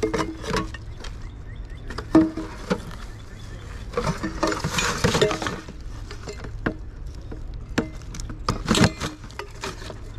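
Handling noise of fishing gear on a gravel bank: scattered sharp knocks and clinks around a plastic bucket and tackle bag, with a rustling scrape about four to five seconds in and footsteps on gravel near the end.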